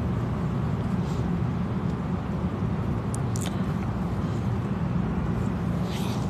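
Steady low rumble of background room noise, with a few faint clicks about three seconds in.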